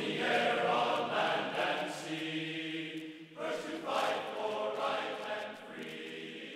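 Choral music: voices singing held chords that change every second or so, with a short break about three seconds in.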